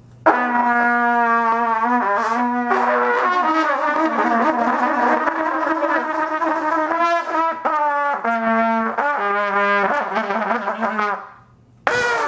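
Two trumpets blown together by untrained beginners: long, wavering held notes at two different pitches that shift and break now and then. They stop about a second before the end, then come back with one short blast.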